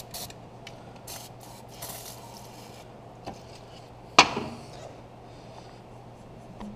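Short hissing bursts of Loctite Freeze & Release aerosol, sprayed about three times in the first two seconds onto a seized exhaust manifold bolt to chill it. A single sharp knock comes about four seconds in and is the loudest sound, followed by a few light clicks near the end.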